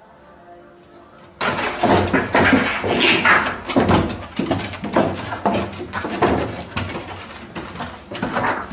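Two cats fighting. A faint low growl comes first, then about a second and a half in, loud screeching and hissing starts suddenly, with scuffling and thumps of their bodies on the wooden deck boards.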